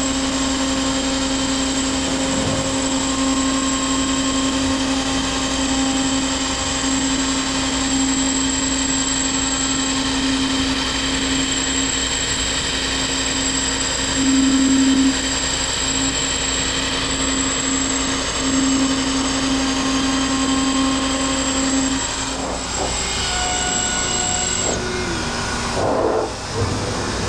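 CNC router spindle running as it cuts 1/8-inch polycarbonate parts on a cleanup pass, a steady hum with a high whine. The hum changes about 22 seconds in, and the high whine stops near the end.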